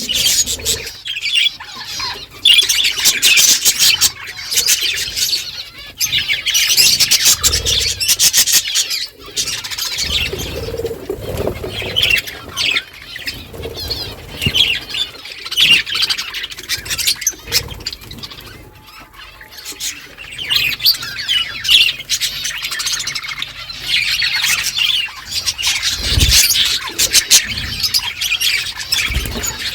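A flock of budgerigars chirping and chattering over one another, with many overlapping high warbles and squawks. The chatter eases off for a few seconds in the middle, then builds again.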